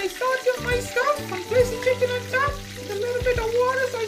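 Background music with a melody and a beat, over the sizzle of butter and fat frying in a stainless steel frying pan.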